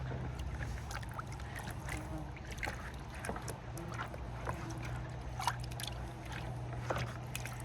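Water sloshing and splashing in a bucket of water and vinegar as a fish is swished around in it to loosen its slime, with scattered small splashes and knocks over a steady low hum.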